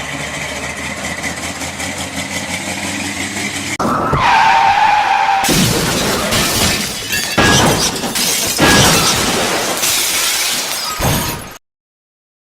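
A car engine runs steadily, then a tyre squeal starts about four seconds in. It is followed by several seconds of crashing: a run of impacts with shattering and breaking sounds, which cuts off abruptly near the end.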